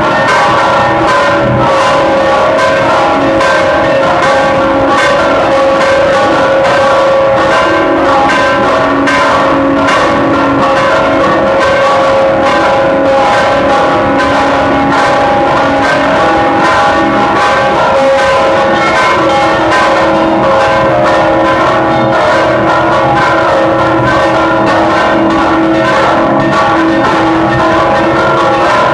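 Church bells rung in a rapid repique: several bells of different pitch struck in quick succession without pause, their tones ringing on and overlapping.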